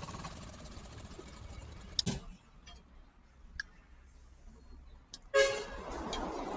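A low rumble ends with a single sharp knock about two seconds in, followed by a fairly quiet stretch with a few faint ticks. Near the end, a vehicle horn gives one short honk.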